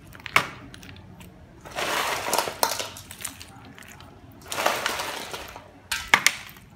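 Ice cubes clinking and clattering as handfuls are grabbed from a metal bowl and set on a plate, in two longer spells of rattling, with sharp clacks of cube on cube near the start and near the end.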